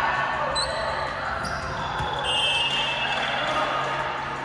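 Volleyball players' voices in a gym, with short high sneaker squeaks on the hardwood floor and a volleyball bouncing once on the court about two seconds in.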